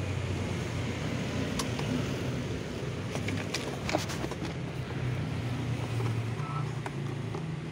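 A motor vehicle engine running with a steady low hum. A few light clicks and taps come from the hard plastic pet carrier and its bungee cord being handled.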